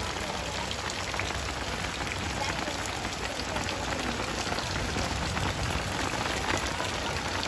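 Rain falling steadily: a constant hiss dotted with many small drop ticks.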